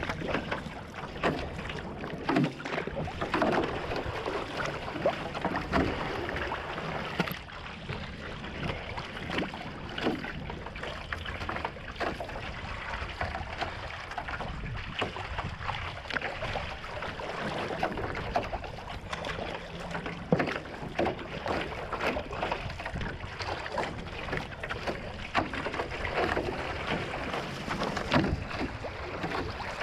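One-person outrigger canoe being paddled with a single-bladed paddle: rhythmic splashes as the blade catches and leaves the water, about one stroke a second, over water rushing along the hull and some wind on the microphone.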